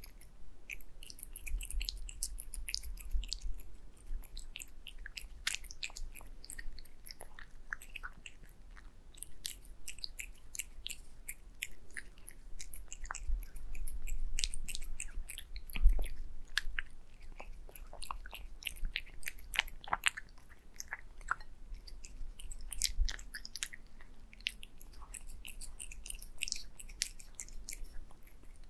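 Black cat chewing wet cat food mixed with egg yolk, heard close up as a steady run of small wet clicks and crackles, with one louder click about halfway through.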